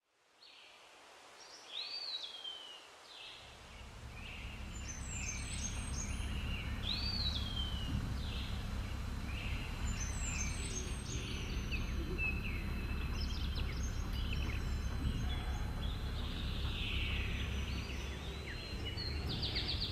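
Wild birds singing, with a repeated rising-then-falling call and clusters of quick chirps, over a low steady rumble that fades in after a few seconds.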